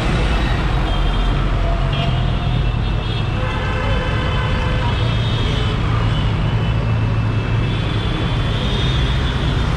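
Busy city street traffic: a vehicle engine runs steadily close by amid the general din of the road.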